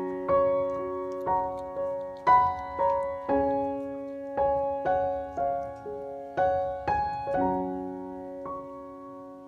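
Slow, gentle piano music: single notes about every half second over held chords, each note dying away, fading out near the end.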